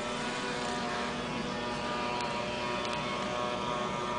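Steady mechanical hum, like a running engine, over a faint even hiss.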